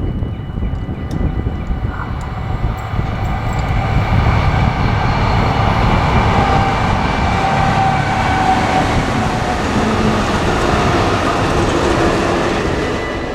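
A train running past on the rails: a loud, steady rumble of wheels and cars, with a few faint thin whining tones over it.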